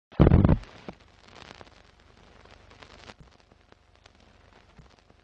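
Old-film countdown leader sound effect: a loud low burst just after the start, then a faint, steady crackle with scattered clicks and pops, like a worn film reel running.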